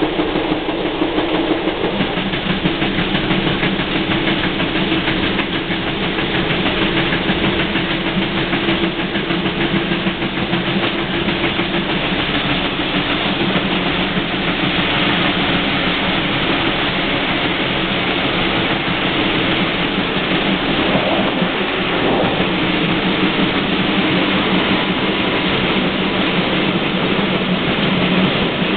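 Steam-hauled train of class 64 tank locomotive 64 518 running along the track, a steady, continuous running noise. A low hum under it fades out partway through.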